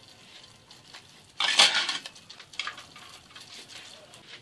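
A doughnut frying in a pan of hot oil with a faint steady sizzle, while a metal fork scrapes and clinks against the saucepan as the baking paper is pulled out from under the dough. There is one loud clatter about a second and a half in, then several lighter clinks.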